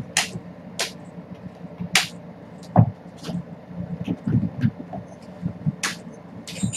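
Kittens scrambling and thudding on a hardwood floor as they leap at and chase a feather wand toy, with several short, sharp swishing scuffs and a few dull thumps, the loudest about three seconds in. A steady low hum runs underneath.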